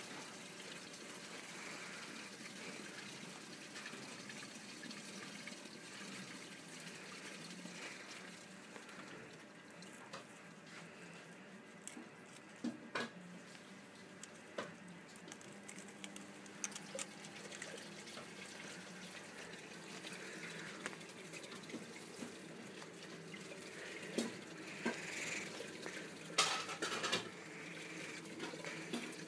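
A steady rushing background noise with a watery character, broken by a few short sharp clicks a little before the middle and a cluster of louder clicks and rustles near the end.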